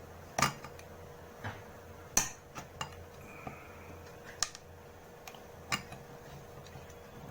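Sharp metallic clicks and clinks as a Bolex H-16 camera's metal chassis is worked free of its body: about half a dozen separate knocks, the loudest about half a second and about two seconds in.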